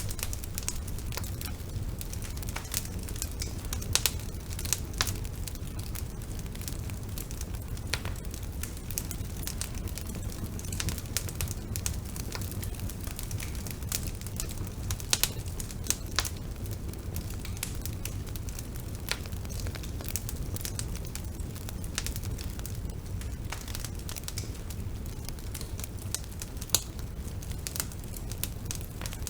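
Bonfire burning: a steady low rumble of flames under frequent sharp crackles and pops, a few of them louder than the rest.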